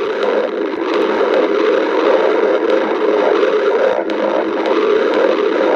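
A person's stomach growling without a break, a steady noisy sound with a few faint clicks scattered through it.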